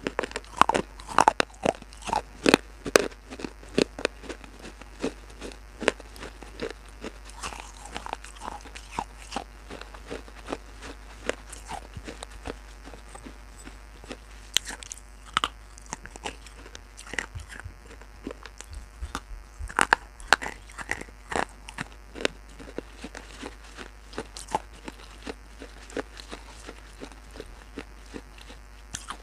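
A person biting and chewing pieces of baked clay pot: many sharp crunches, in clusters near the start and again about halfway through, with softer grinding chews between.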